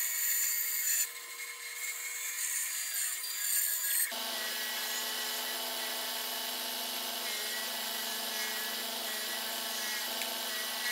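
A bandsaw runs and cuts a grooved wooden board. About four seconds in, the sound switches to a bench belt sander running steadily as grooved wooden pieces are pressed against it to shape them.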